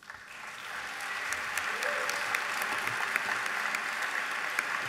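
Audience applauding, the clapping starting suddenly and swelling over the first second, then holding steady.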